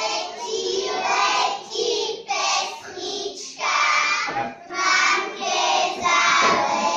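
A group of young children singing a song together, line by line with short breaks between phrases.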